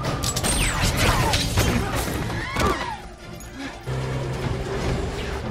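Action-film soundtrack: music under a run of crashes and impacts with falling screeches in the first half. From about four seconds in it settles into a held low chord.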